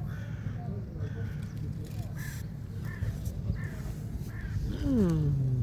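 A crow cawing repeatedly: short, harsh calls about every second. A low falling voice comes in near the end.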